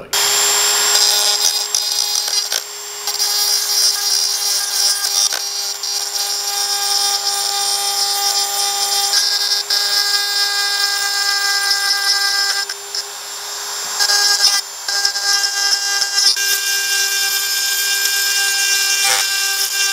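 Handheld Dremel-style rotary tool running at steady high speed, its small bit grinding against the rusted steel cleat plate on an old leather shoe sole. A constant high-pitched whine that dips briefly a couple of times as the bit is pressed or lifted.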